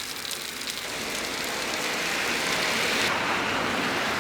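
Steady rain falling: an even hiss that grows gradually louder, its highest part dropping away about three seconds in.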